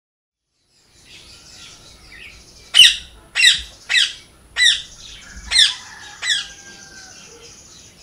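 A parrot squawking six times, each a short harsh call, spaced about half a second to a second apart, over faint chirping of other birds.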